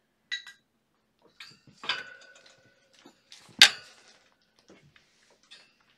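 Metal dishes clattering and clanking in a few separate knocks, some ringing briefly, with one sharp, loud clank about three and a half seconds in.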